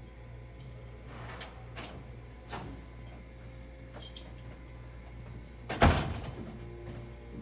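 Elevator doors sliding and knocking: a few light clicks, then one loud thump a little before six seconds in, over a steady low hum.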